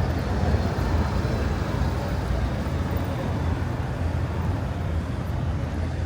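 Steady rumble of city street traffic, the low drone of passing cars and engines.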